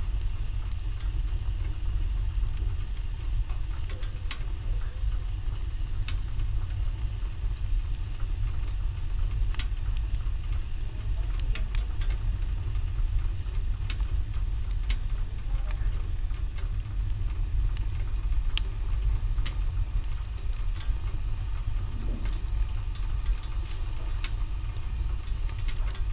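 Wood fire in a fireplace crackling: scattered sharp pops and snaps over a steady low rumble.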